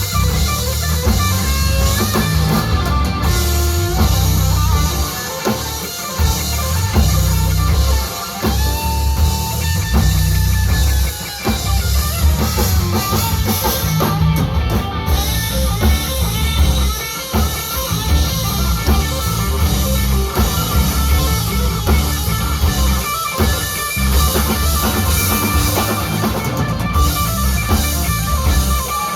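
Live rock band playing an instrumental passage: electric guitar leads over a drum kit and heavy bass, with one long bent guitar note about ten seconds in.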